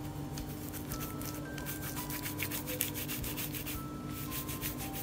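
Hands rolling soft sweet potato dough between the palms into a stick, giving quick, rhythmic rubbing strokes in two spells, a longer one from about half a second in and a shorter one near the end. A soft background melody of single held notes plays throughout.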